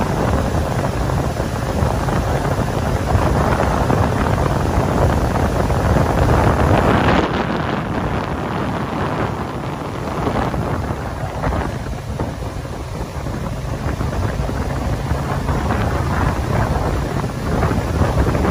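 Wind buffeting the microphone of a motorboat running underway, over the low, steady noise of the boat's engine and hull through the water. It eases a little midway and then picks up again.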